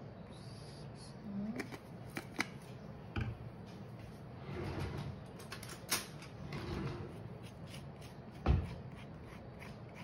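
Kitchen handling noises: a few sharp knocks and clicks of things being picked up and set down on the counter, two short spells of rustling, and a dull thump near the end.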